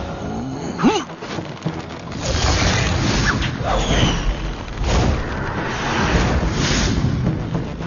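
Sound effects of a magic battle in an animated series: a string of booms and rushing blasts of noise, with music underneath.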